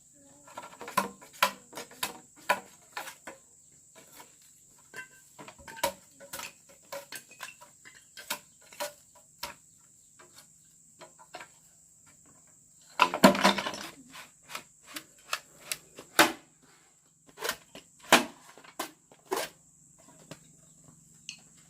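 Irregular sharp knocks and taps, a few a second, with a denser, louder cluster about two-thirds of the way through, over a steady high-pitched insect trill.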